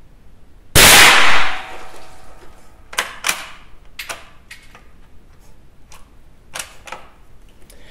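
A single .22 LR rifle shot from a Remington 512 Sportmaster bolt-action, ringing briefly in a small foam-lined room, about a second in. It is followed by a run of sharp metallic clicks and clacks as the rifle's bolt is worked by hand.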